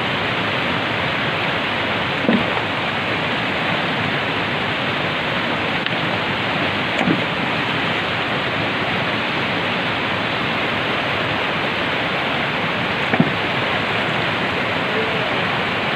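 Fast mountain river rushing and splashing over boulders, a steady, unbroken roar of water, with a few faint brief knocks over it.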